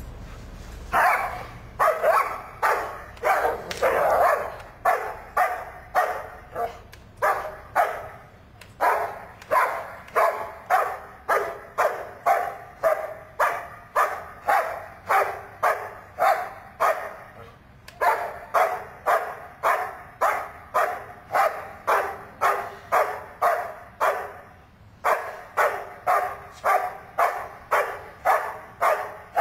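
A large dog barking steadily and rhythmically, about two barks a second with a few short breaks: the hold-and-bark at the helper in the blind in Schutzhund protection work.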